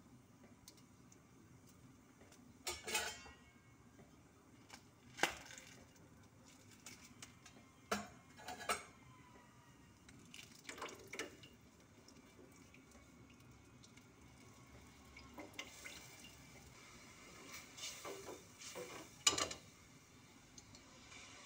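A metal ladle clinking and knocking against an aluminium cooking pot of broth, a dozen or so scattered strikes in small clusters, some ringing briefly.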